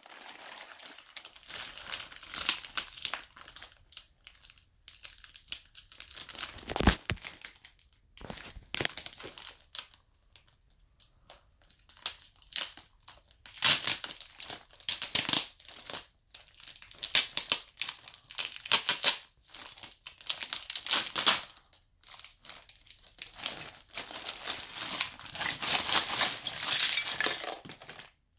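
Clear plastic zip-top bag crinkling and rustling in irregular bursts as it is handled and opened, louder and busier in the second half as the toys are shaken out of it.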